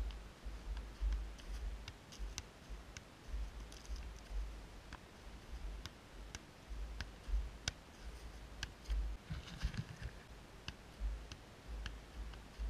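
Soccer ball being juggled: light, irregular taps of the ball on foot and thigh, about one or two a second, over a low on-and-off rumble.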